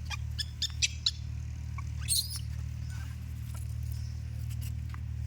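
Short, high-pitched animal chirps: a quick series in the first second, then a louder squeal about two seconds in, over a steady low hum.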